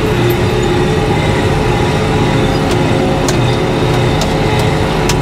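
Tractor's diesel engine running steadily under load while pulling a heavy disc harrow through the field, a constant loud drone with a few sharp clicks and rattles in the second half.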